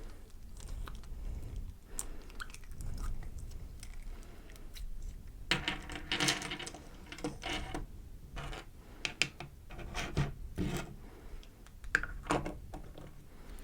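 Clear slime being handled in its container, making irregular small clicks and pops, busiest about six seconds in.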